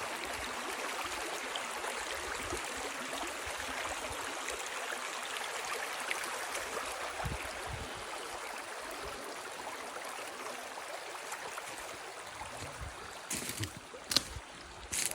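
A small river flowing, a steady rush of water. A few sharp knocks and low bumps come near the end.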